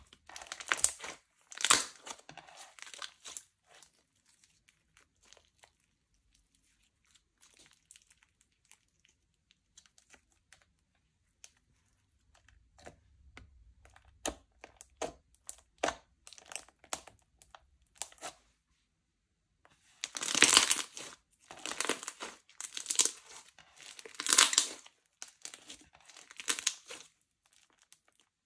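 Slime being squeezed and stretched by hand, giving crisp crackling and popping clicks. There are dense bursts of crackling near the start and again in the last third, with scattered single pops in between.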